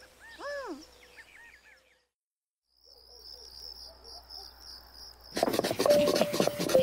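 A short sighing voice, then a steady row of high cricket chirps, about three a second. About five seconds in, loud rapid rhythmic scraping of a knife blade starts, with a few music notes over it.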